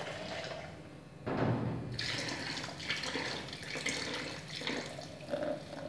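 Hot water poured from a plastic pitcher into a plastic cooler bucket around yogurt jars, a steady splashing stream that runs for about three seconds and then stops. A low bump comes just before the pouring starts.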